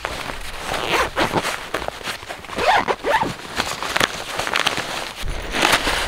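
Synthetic tent fabric rustling and crinkling in irregular rushes as it is handled and spread out over the snow. Wind buffets the microphone with a low rumble near the end.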